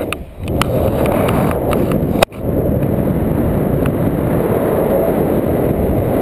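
Airflow of paraglider flight buffeting an action camera's microphone: a loud, steady wind rush, with a few sharp clicks in the first two seconds and a sudden brief dropout a little after two seconds.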